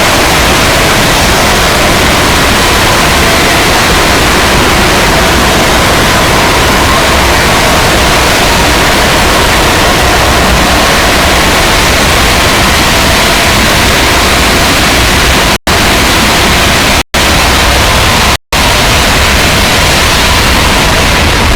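Extremely loud, heavily distorted static-like noise covering every pitch from deep rumble to high hiss, with no clear tone in it. It cuts out to silence for an instant three times, about a second and a half apart, near the end.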